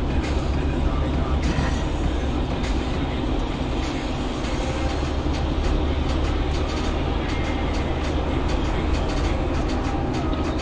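Steady low rumble of a moving car's road and engine noise, heard from inside the cabin through the dash cam, with frequent small clicks and rattles.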